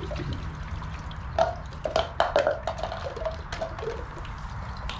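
Water splashing and dripping into a plastic water-play table as it is poured from small cups and funnels, with irregular plops and plastic toys knocking, busiest about a third of the way in.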